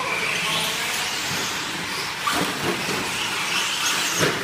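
Electric 1/10-scale 4x4 short-course RC trucks running on an indoor dirt track: a steady hiss of tyres and drivetrains, with the whine of the brushless motors rising and falling as they speed up and slow down.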